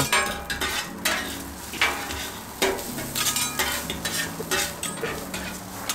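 Metal spatula and fork scraping and tapping on a hot flat-top griddle, working eggs and fried rice, with oil sizzling underneath.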